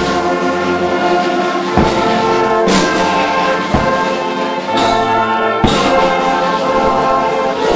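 Brass band playing a slow tune of held notes, with a percussive beat roughly once a second.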